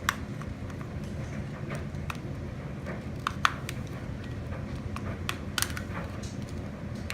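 Small plastic clicks and snaps as a fingernail pries at the seam of an HTC Vive controller's plastic cover, scattered and irregular, with the loudest snap about three and a half seconds in. A faint steady low hum runs underneath.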